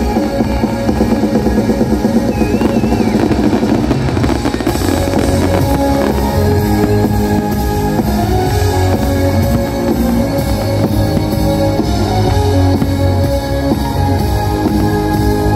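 Loud rock music with drums.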